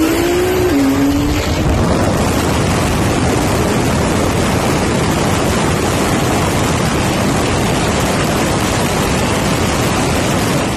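A car's engine note rises briefly, then gives way to a loud, even rushing noise with no clear pitch: wind buffeting the microphone of a car travelling at high speed.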